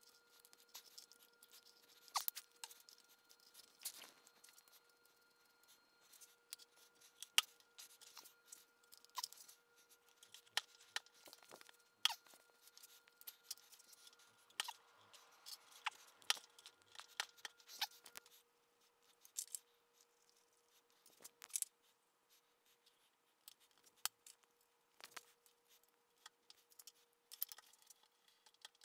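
Scattered small clicks and metallic taps from machine parts being handled and fitted by hand on a Bridgeport mill head, with a hex key turning a set screw, over a faint steady hum.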